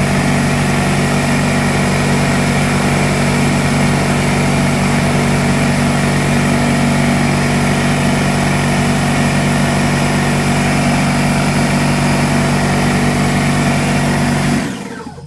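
DeWalt 6-gallon oil-free pancake air compressor running steadily with a slight rattle, then switched off abruptly near the end. The tank is not building any pressure: a switch under the tank had been left off.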